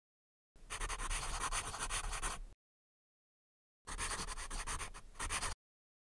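A pen writing by hand on paper, its tip scratching in many quick strokes. It comes in two spells of about two seconds each, with dead silence between them.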